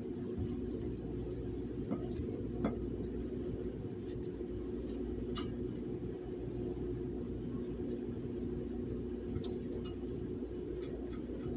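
Steady low hum with a few faint clicks and clinks from handling dishes or the potatoes, about three small ticks spread through.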